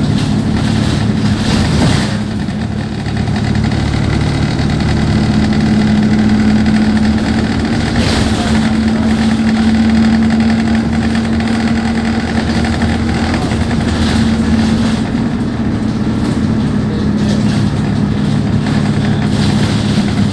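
Diesel engine of an Alexander Dennis Enviro200 single-deck bus heard from inside, running at a constant speed with a steady drone. A couple of brief knocks are heard, about two seconds in and again near eight seconds.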